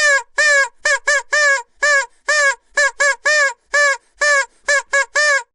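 Vuvuzela blown in a rapid run of short toots, about three a second, each note a single buzzy pitch that bends slightly.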